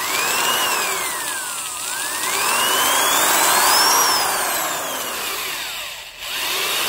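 Porter-Cable 7514 half-inch corded drill running unloaded, its motor whine rising and falling as the variable-speed trigger is squeezed and eased. The whine dips out briefly near the end, then picks up again. It runs well, with no grinding from the gears.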